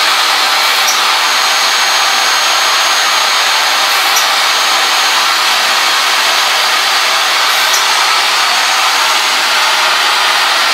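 A machine's motor running steadily, a loud even rush with a faint high steady tone on top, from another machine running in the garage.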